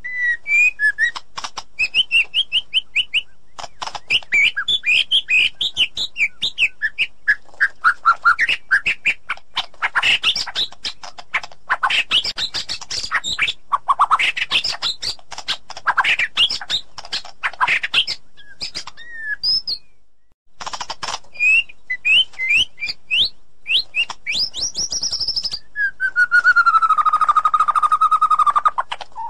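White-rumped shama singing: a fast, varied run of loud whistles, chirps and trills, with a brief break about two-thirds of the way through and a long sliding whistle near the end.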